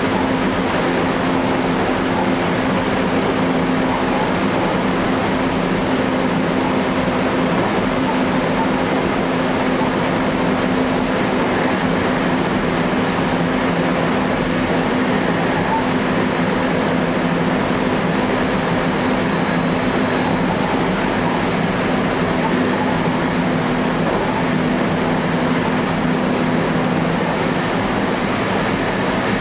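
Electric train running steadily along the track, heard from inside the driver's cab: a constant rumble of wheels on rail with a steady low hum under it.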